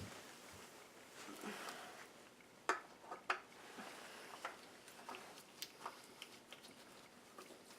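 Faint scattered clicks and light taps of small metal and plastic parts and tools being handled, with two sharper clicks about three seconds in.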